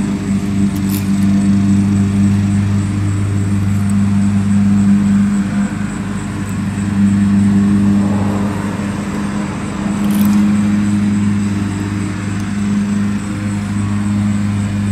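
Steady low hum of a motor running, with a few faint clicks of steel clutch springs being handled.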